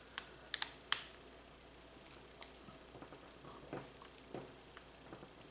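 Small sharp clicks and light handling sounds of a plastic electrical plug being worked on while its cord-clamp screws are tightened, a few crisp clicks in the first second, the loudest about a second in, then scattered faint ticks and rustles.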